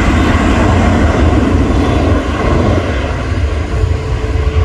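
Jet airliner passing, its engines a loud, deep rumble with a broad rush of noise that eases a little about two seconds in.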